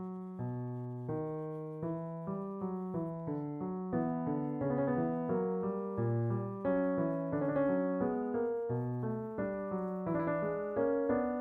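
Background solo piano music, notes and chords struck in steady succession, each fading after it is played.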